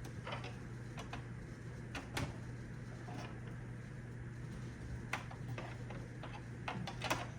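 A few scattered sharp clicks and taps of plastic Roomba 690 parts being handled while a part is worked loose, the clearest about two seconds in, over a steady low hum.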